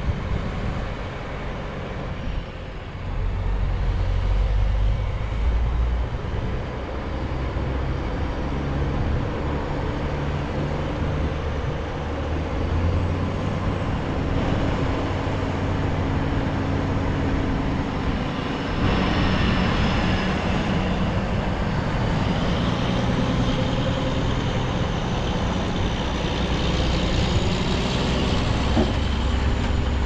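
Heavy diesel engines of tractors and a loaded semi truck running steadily, with rising whines partway through and again near the end as a machine picks up speed.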